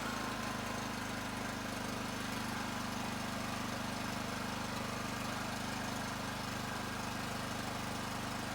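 Champion 200954 open-frame inverter generator's small gas engine running steadily just after its first cold start, with the choke halfway in. Its pitch settles slightly right at the start, then holds even.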